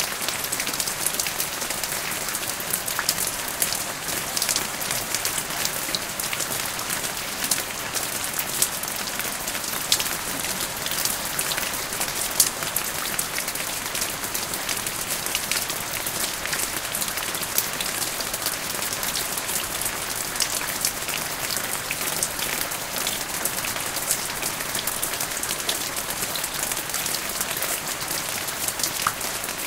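Steady rain falling and pattering on surfaces, with many small drop ticks through it.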